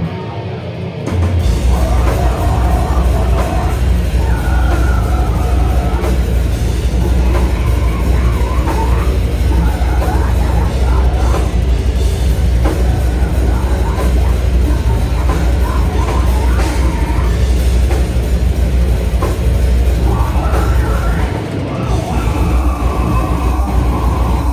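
Slam death metal band playing live: heavy, down-tuned guitars, bass and drums at full volume. The heavy low end comes in about a second in and drops out briefly near the end.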